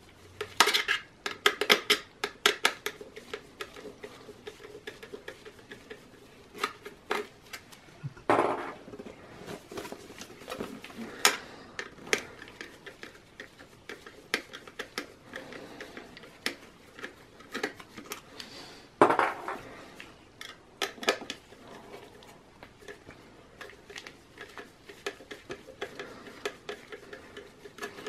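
A screwdriver turning the mounting screws on the side of a metal optical drive: irregular small metallic clicks, ticks and rattles. Two louder clunks come about eight seconds in and about nineteen seconds in.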